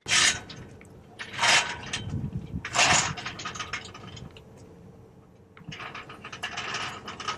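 Metal clanking and rattling in three loud bursts about a second and a half apart, then a stretch of quick ratchet-like clicking and rattling near the end.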